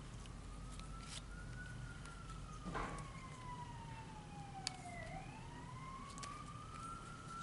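A faint emergency-vehicle siren wailing, its pitch slowly sinking for a few seconds and then rising again. Over it, a knock about three seconds in and a sharp click a couple of seconds later, from trading cards being handled.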